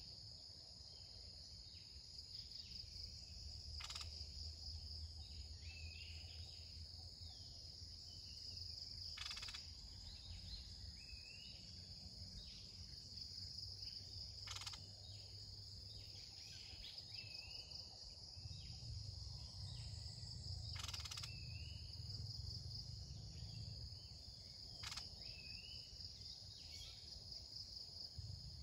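Red-whiskered bulbuls calling in short, repeated warbling phrases over a steady high insect drone, with a few sharp clicks a few seconds apart.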